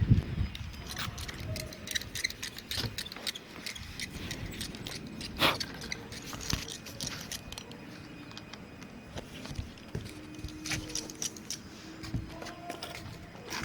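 Scattered light clicks, taps and jingles of roofing nails and tools being handled on a tar-papered shed roof, with one sharper knock about five and a half seconds in.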